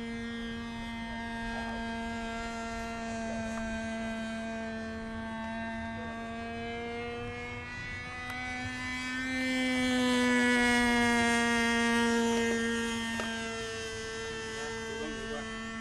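Motor and propeller of a radio-controlled Messerschmitt Me 163 Komet model in flight, a steady droning tone. About nine seconds in it grows louder and rises a little in pitch as the plane comes closer, then falls back.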